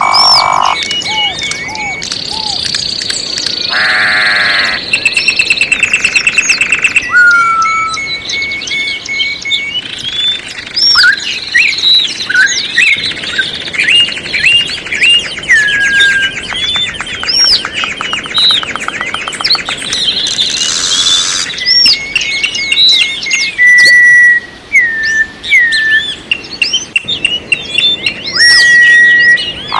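Several songbirds singing at once in a dense chorus of chirps, whistles and quick trills. Now and then a held whistled note cuts through, and a fast rattling trill comes about halfway through.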